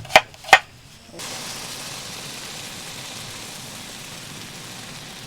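Two more knife chops on a cutting board, then about a second in, chopped onion hits a hot pan and sizzles steadily.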